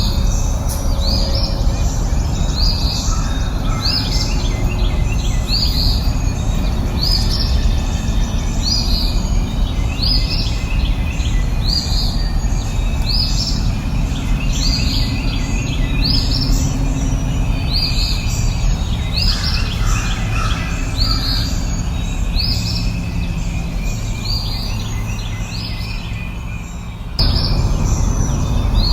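Birds chirping, one short call repeated a little more than once a second, over a steady low background rush. The background changes abruptly near the end.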